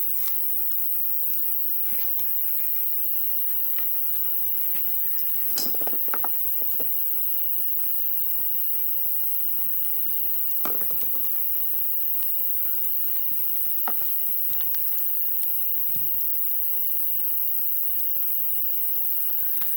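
Wood campfire crackling with scattered snaps and pops, a few louder cracks among them, the first about five and a half seconds in, over a steady high-pitched tone.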